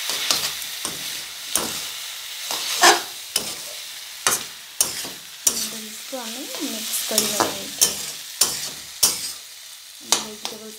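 Noodles being stir-fried in a wok: a steady sizzle of hot oil, with irregular clatters and scrapes as a spatula tosses and mixes them against the pan.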